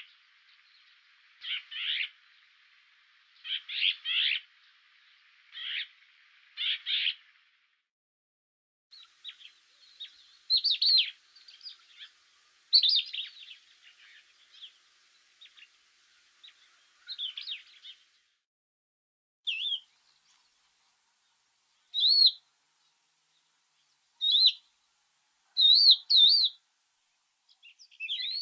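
Songbirds chirping and singing in short high phrases, separated by brief pauses. After a silent gap, the phrases give way to sparser single whistled calls.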